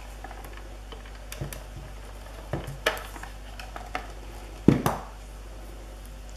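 Scattered light clicks and taps of craft supplies handled on a wooden tabletop, with a sharper double knock a little before the end as a red plastic tool is set down.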